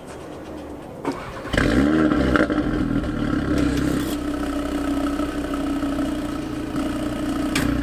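2017 Audi TT RS Roadster's turbocharged 2.5-litre five-cylinder starting through its sports exhaust: a click about a second in, then the engine catches with a quick rev flare and settles into a steady idle.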